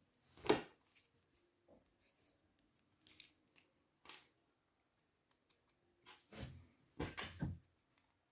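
Handling noise from a resin watch strap and its small metal spring bar and adapter parts being picked up and worked by hand on a wooden table: irregular light clicks and scrapes, the loudest about half a second in and a cluster near the end.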